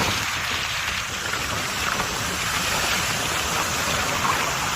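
Ocean surf washing onto a beach: a steady hiss of breaking waves with a low rumble underneath.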